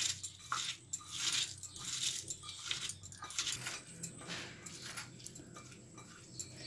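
A hand rubbing and squeezing salted, finely chopped banana stem pieces in a glass bowl, a rhythmic rustling squish roughly two to three times a second, with glass bangles jingling on the wrist. Rubbing the stem with salt softens it so it cooks quickly.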